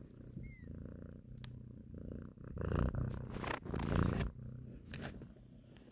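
Mother cat purring while nursing, the purr rising and falling with each breath. About two and a half seconds in, a louder stretch of rustling covers it for nearly two seconds.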